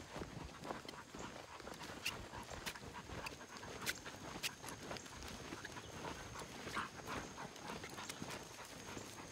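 Footsteps on a dirt trail with leashed hog-hunting dogs trotting alongside and panting, plus a few sharp clicks.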